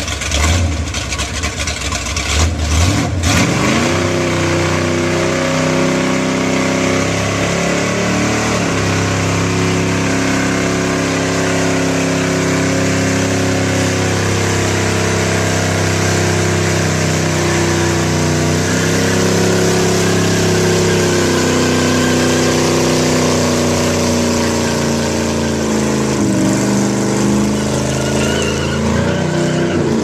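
Car burnout: the engine revs roughly at first, then holds at high revs while the rear tyres spin and screech against the road. The engine note sags briefly twice and climbs back.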